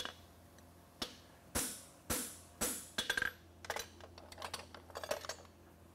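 Hammer striking a hand-held fuller set in the groove of a steel horseshoe on the anvil: about five sharp metal strikes roughly half a second apart. Then, from about halfway in, a run of lighter clinks and knocks of steel on the anvil.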